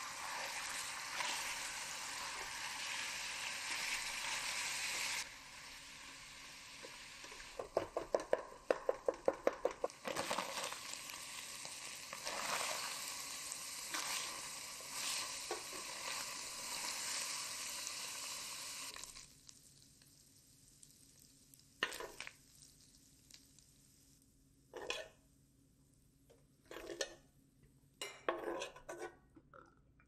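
Ground beef sizzling as it browns in a stainless steel pot, stirred and broken up with a wooden spatula, with a quick run of about a dozen taps of the spatula against the pot about a third of the way in. The sizzle stops about two-thirds in, leaving a few separate knocks and scrapes.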